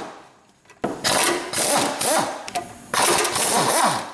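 An impact gun spins a 17 mm socket on the engine's top-mount bolts in several short bursts, loosening and backing the bolts off. It starts about a second in, and its pitch rises and falls as the trigger is squeezed and let off.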